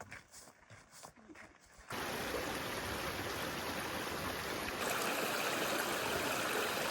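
Steady rushing of running water, like a stream, starting abruptly about two seconds in after a few faint scattered sounds, and cutting off sharply at the end.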